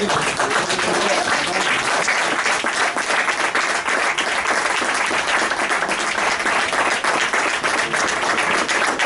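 Spectators applauding steadily, a dense patter of many hands clapping.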